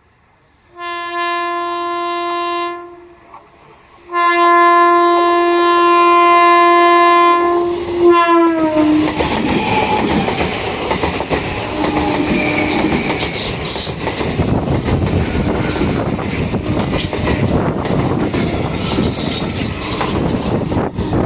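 Indian Railways train horn sounding a short blast, then a longer one whose pitch drops as the locomotive passes. The train then runs through at speed, with loud wheel clatter over the rail joints.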